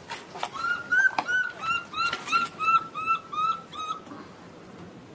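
Baby macaque giving a rapid series of short, high-pitched distress cries, about three a second, which stop about four seconds in.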